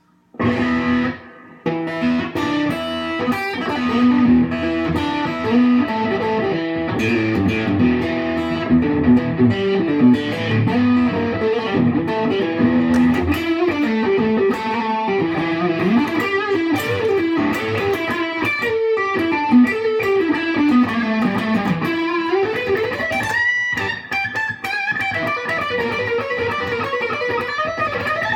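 Samick Malibu electric guitar with rails pickups played through a Peavey Bandit amp's distorted gain channel. It opens with a chord and a brief break, then plays riffs and quick runs of notes that climb and fall, with a long sliding note near the end.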